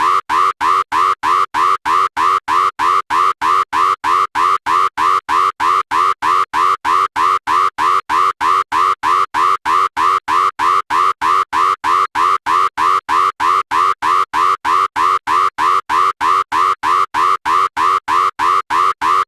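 Cash machine alarm sounding: a loud electronic beep repeating steadily, about three to four beeps a second, signalling a red alert at the machine.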